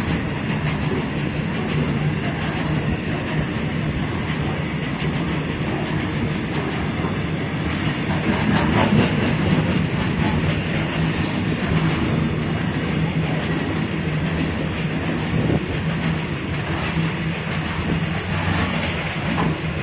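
Coal-loaded freight hopper wagons rolling past at speed: a steady rumble of steel wheels on rail with a rapid clatter over rail joints, a little louder and busier about eight to ten seconds in.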